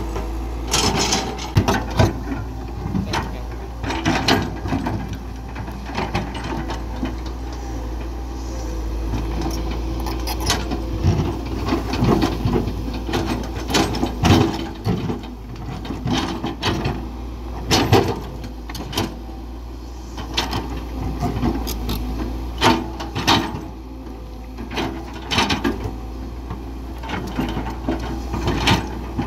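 Caterpillar 312BL hydraulic excavator working: its diesel engine runs steadily underneath, with irregular sharp knocks, clanks and scrapes as it works rock and soil.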